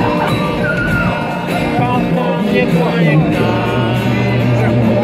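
Street musician playing guitar and singing through a microphone, a steady song with a male voice over strummed chords.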